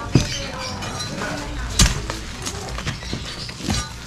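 Sharp knocks and clinks of hard objects striking, with a loud one just after the start and the loudest about two seconds in, and lighter ticks between.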